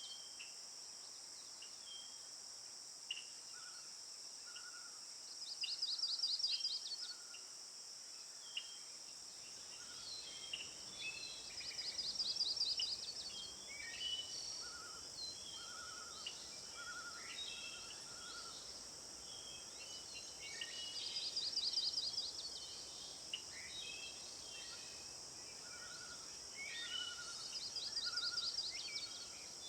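Outdoor birdsong: one bird sings a short high trill four times, about every six to nine seconds, while other birds give scattered chirps and short notes, over a steady high insect drone.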